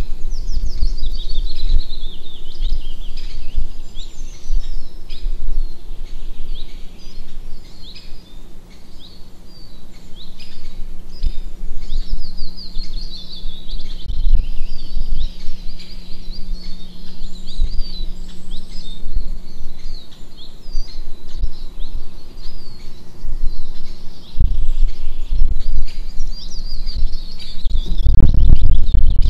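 Small birds chirping and singing in quick repeated phrases throughout, over a low rumble with a few dull knocks. A steady low hum runs through most of it.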